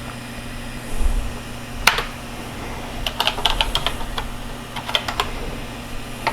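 Keys being typed on a TRS-80 Color Computer keyboard: single keystroke clicks and a quick run of several keys, over a steady low electrical hum.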